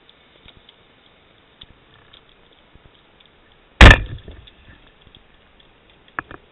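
A speargun firing underwater: one sharp, loud shot about four seconds in that trails off over about a second, as the spear takes a small fish. Faint scattered underwater clicks around it, and two sharper clicks near the end.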